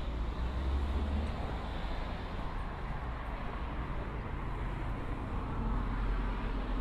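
Road traffic on a street: cars passing with a steady low rumble of engines and tyres, swelling about a second in and again near the end as vehicles go by.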